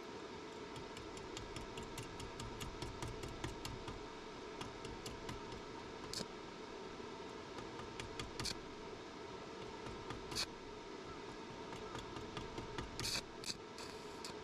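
A quick run of light clicks, about six a second, over the first few seconds, then scattered sharp taps and clinks, with a short cluster near the end. A steady hum runs underneath.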